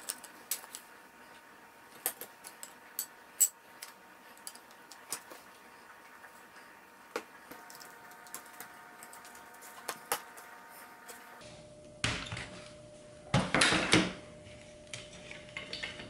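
Scattered sharp clicks and light knocks of walnut frame pieces and a one-handed bar clamp being set and squeezed in a wooden frame-clamping jig. Near the end there is a louder rough scraping noise lasting under a second.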